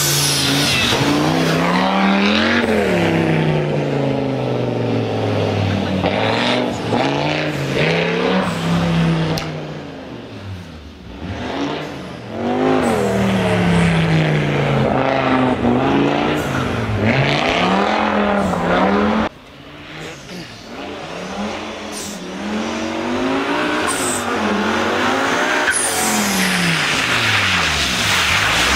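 Audi 90 quattro's 2.2 20-valve turbocharged five-cylinder engine revving hard at rally pace, its pitch climbing and falling again and again through the gear changes. It fades briefly about ten seconds in and cuts off abruptly around twenty seconds in before picking up again.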